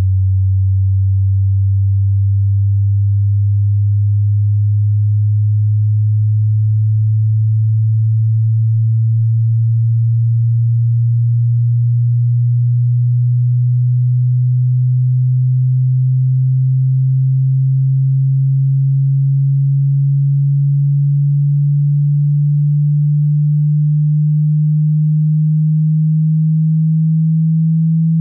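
A hearing-test sine tone, one low pure note slowly rising in pitch, with a brief dip about every six or seven seconds.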